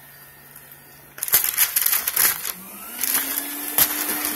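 Vacuum cleaner motor running with its shampoo spot-cleaning tool. About a second in, loud crackly suction noise sets in as the nozzle pulls up water. Past the middle the motor's pitch rises and then holds steady.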